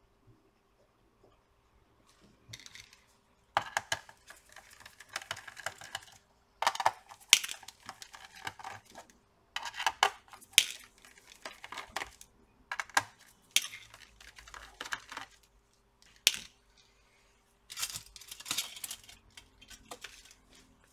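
Screws being taken out of a Lenovo IdeaPad 3 laptop's plastic bottom cover with a precision screwdriver: about five bursts of clicking and scraping, a couple of seconds each, with a few sharper ticks of small metal parts being handled.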